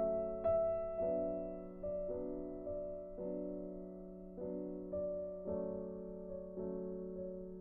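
Background music: a slow, gentle piano piece, with a new chord struck about every second and left to ring.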